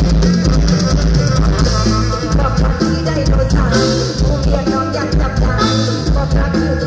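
Live Thai mor lam band music played loud over a stage PA: a steady drum-kit beat and bass, with a singing voice over them.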